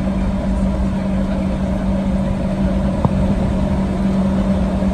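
Boeing 737-800 cabin noise while taxiing, with the CFM56-7B engines at idle: a steady hum over a low rumble. A single brief click about three seconds in.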